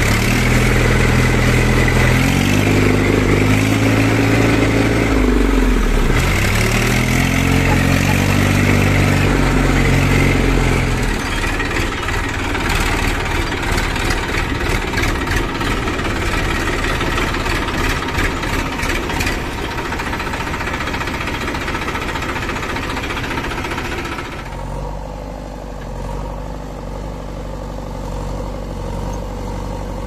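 Massey Ferguson 1035 tractor's diesel engine running, heard from the driver's seat, its revs rising and falling twice in the first ten seconds, then a rougher steady run with rattles. In the last few seconds a quieter, steady engine idling.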